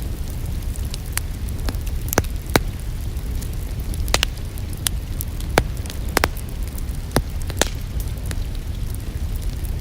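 Wood fire crackling in a fireplace: irregular sharp pops and snaps, about a dozen, over a steady low rumble of the burning fire.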